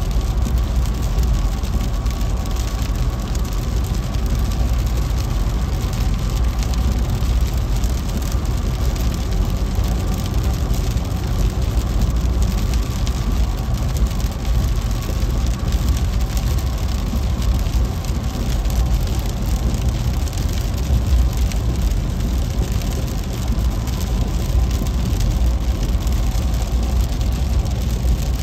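Steady road noise inside a moving car in heavy rain: low engine and tyre rumble on the wet freeway, with rain hitting the windshield.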